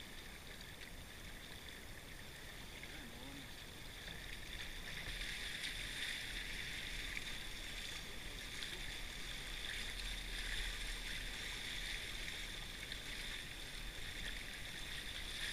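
Water rushing and splashing along the hulls of a sailing kayak catamaran, growing louder about five seconds in.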